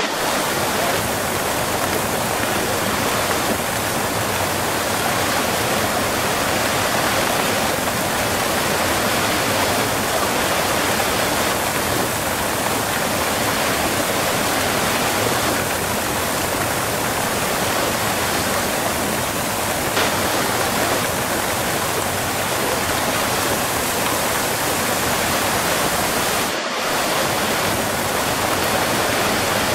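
Waterfall heard close up: a steady, full rush of falling water, with a split-second dip about three seconds before the end.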